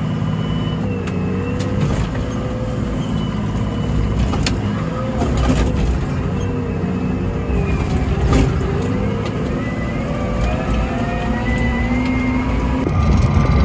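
Komatsu WA100 wheel loader's 4.9-litre diesel engine running under work, its pitch rising and falling as it revs, with a few brief clunks.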